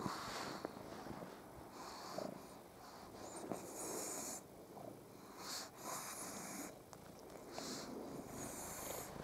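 Faint wheezy snoring breaths of a sleeping pug, coming irregularly every second or two, mixed with a cat's purring.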